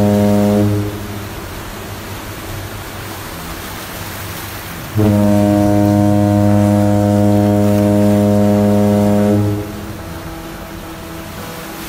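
Steamship's deep horn: a long blast that ends just under a second in, then a second long blast of about four and a half seconds starting near the middle, over a steady background noise.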